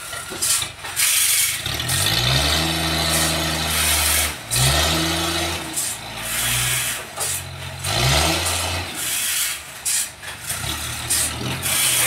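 Toyota forklift engine revving up three times and dropping back as the truck manoeuvres, over a steady rushing noise.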